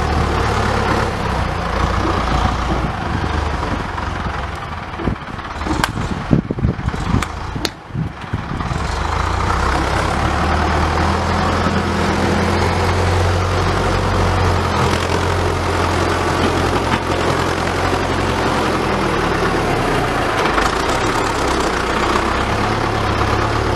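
Farm tractor with a front dozer blade, its engine running steadily as it pushes and spreads loose soil. About six to eight seconds in the engine sound dips and a few sharp knocks are heard.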